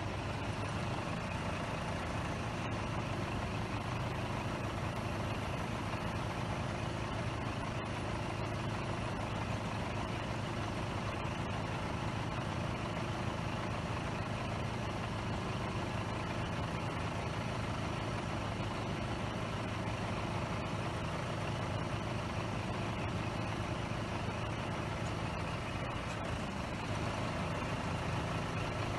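Scania R420 truck's straight-six diesel engine running steadily while it drives the hooklift's hydraulics, as the hook arm swings.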